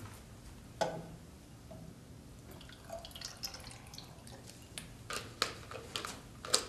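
Vodka pouring from a bottle into a glass of ice: a thin trickle with drips and light clinks of ice. A single sharp clink sounds about a second in.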